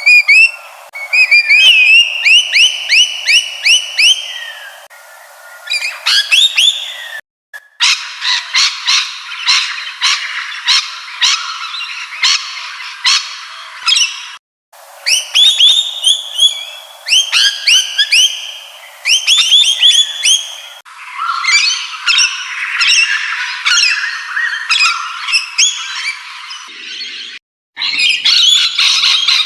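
Parrots calling: rapid, repeated squawks and chirping whistles. They come in several back-to-back clips that each cut off abruptly.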